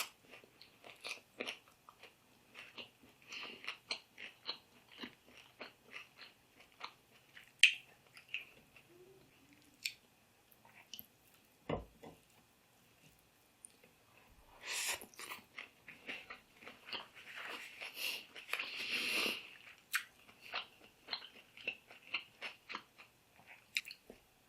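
Close-up chewing and crunching of fried fish and green mango salad, many small wet mouth clicks, with busier crunchy stretches about fifteen and eighteen seconds in. A single low knock comes about twelve seconds in.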